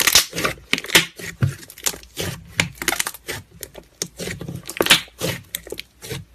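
Slime being squeezed, poked and stretched by hand, giving an irregular run of sharp pops and crackles, several a second.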